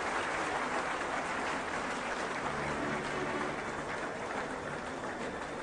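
Large crowd applauding in a hall: steady, dense clapping that eases off a little toward the end.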